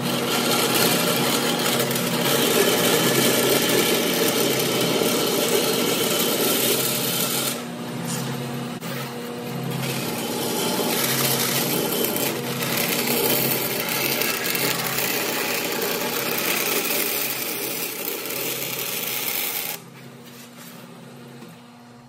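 Grob NS18 vertical metal-cutting bandsaw's fine-tooth blade cutting through 10-gauge steel plate fed by hand: a steady rasping cut over the machine's running hum. The cutting noise drops off sharply near the end, leaving the saw running more quietly.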